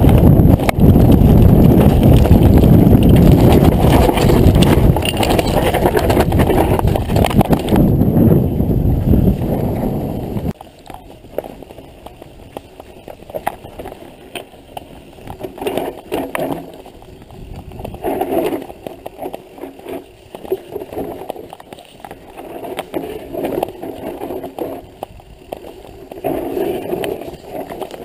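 Mountain bike riding over rough ground: a loud rushing and rattling noise on the on-board microphone for about the first ten seconds, then it drops suddenly to quieter scattered clicks and clatter.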